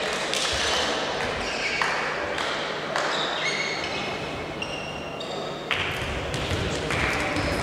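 Background noise of a volleyball hall between rallies: echoing crowd noise with several short, high squeaks around the middle.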